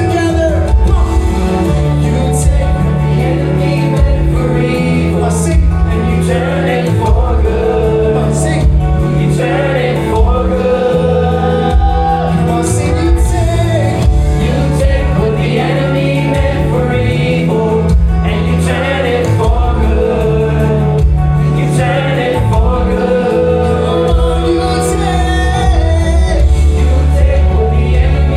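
Live gospel worship music: a band with bass and drums playing under sung vocals, the bass holding each note for about two seconds before moving on.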